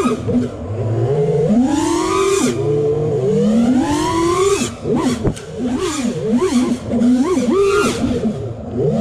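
FPV racing quadcopter's brushless motors and propellers whining, their pitch climbing and dropping with the throttle: two long rising sweeps, then quick short blips of throttle from about halfway through.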